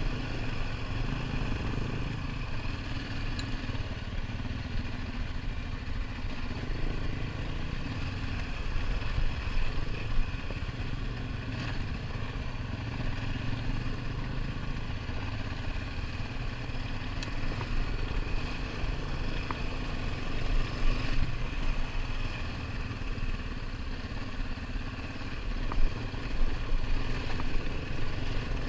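ATV engine running steadily while riding a rough dirt trail, with a few brief knocks.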